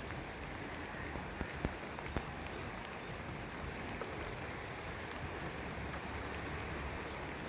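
Steady hiss of falling rain, with a few sharp taps about one and a half to two seconds in.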